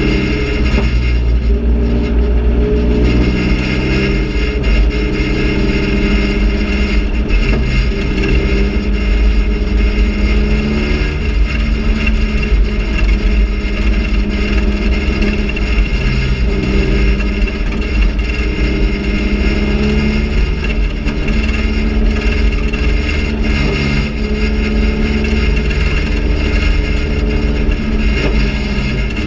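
Raspy GM Quad 4 inline-four race engine heard from inside the cabin, running hard at racing speed, its pitch repeatedly rising under acceleration and dropping as the throttle is lifted.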